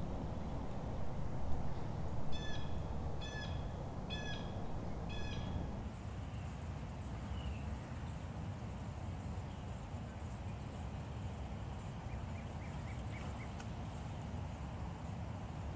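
A bird calls four times in a row, short evenly spaced notes just under a second apart, over a steady low rumble of outdoor background noise. Faint crackling rustles come later.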